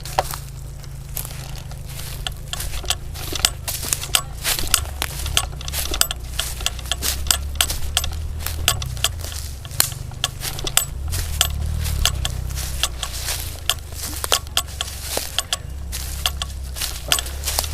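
Footsteps crunching through dry leaves and twigs: irregular crackling and snapping, several clicks a second, over a low rumble of wind on the microphone.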